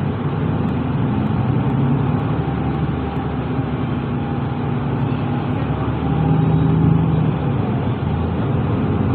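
Diesel engine of a Mercedes-Benz Citaro bus heard from inside the cabin, with a steady low hum and rumble as the bus drives off and turns; the engine note shifts and gets louder about six seconds in.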